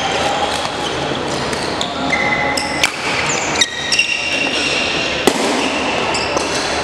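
Badminton rally in a large hall: sharp racket strikes on the shuttlecock, a few over the rally, with shoes squeaking briefly on the wooden gym floor between them.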